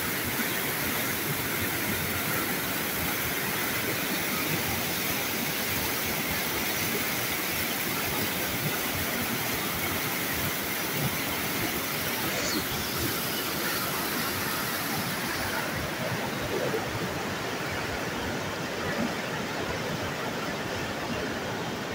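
Turbulent white water rushing and churning as it pours out of a concrete sluice outlet, a steady unbroken rush of water.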